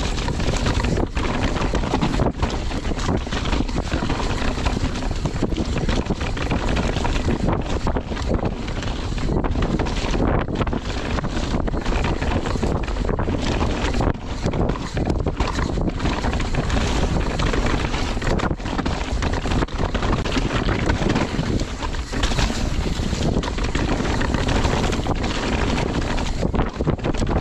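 Wind rushing over a rider-worn camera's microphone on a downhill mountain bike at speed, over the rumble of the tyres and bike on a rough dirt trail. The noise is steady and loud, with brief dips.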